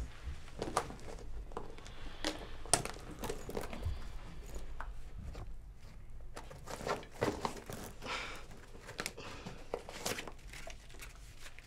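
Irregular crinkling and rustling from something being handled by hand, with scattered small clicks and soft knocks, in a small room.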